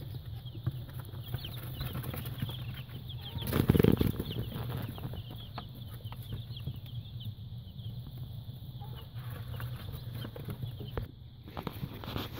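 A brood of young chicks peeping, many short high chirps overlapping, over a steady low hum. About three and a half seconds in there is a brief, louder rustle.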